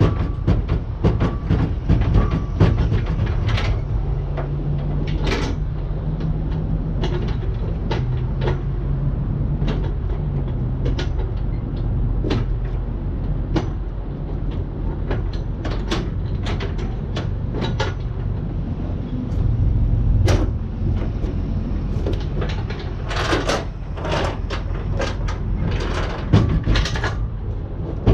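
Irregular metal clicks and clanks of hand work on steel log bunks on a flatbed trailer deck, a few in quick clusters near the end, over a steady low rumble.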